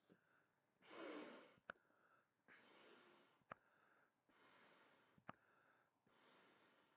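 Faint, repeated breaths blown into an Alpacka Raft Ranger packraft's inflation valve to top up the hull. Each breath ends in a short sharp click, about every couple of seconds, as the one-way check valve pops back shut.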